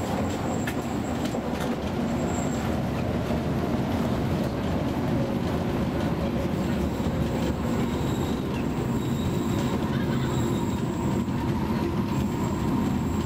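Vintage 1500 V DC electric railcar running along the track: a steady rumble, with a few sharp wheel clicks in the first couple of seconds and a faint high wheel squeal coming and going.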